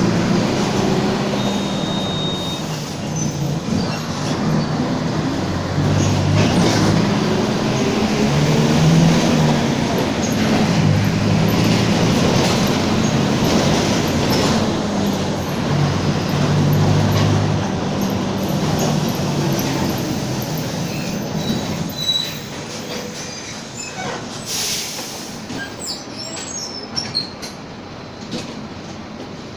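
Mercedes-Benz OF-1722M city bus on the move, heard from inside: body and fittings rattling over the running gear, with a low droning howl from the differential that comes and goes in stretches as the bus pulls and eases off, the sign of a worn, noisy differential. The whole sound drops away over the last several seconds as the bus slows.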